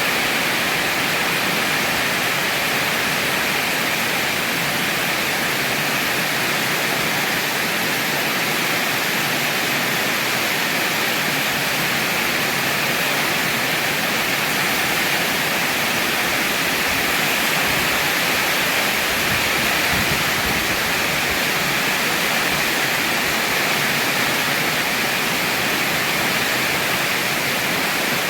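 Heavy rain falling in a steady, dense hiss, with no thunder or separate drops standing out.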